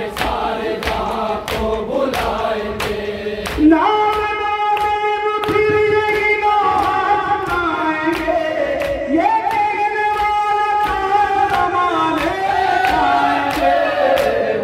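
Noha sung by a man into a microphone with a group of men chanting along, holding long notes about four and nine seconds in. Under it runs matam, hands beating on chests in a steady beat of roughly two strikes a second.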